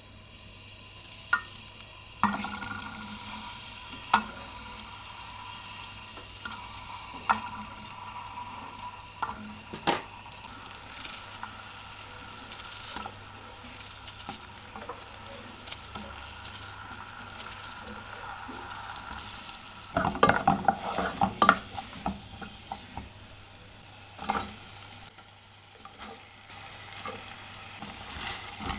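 Minced meat with potatoes and carrots frying in a pot with a steady sizzle, while a spoon stirs it and now and then knocks against the pot. About twenty seconds in comes a busy run of scraping and knocking as the pot is stirred hard.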